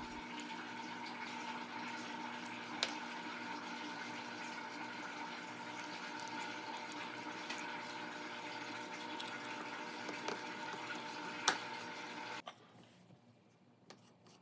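Steady background hum with a few light clicks; the hum cuts off abruptly about twelve and a half seconds in.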